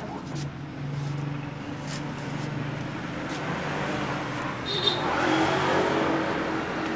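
A motor vehicle engine running, a low steady hum with a few faint clicks.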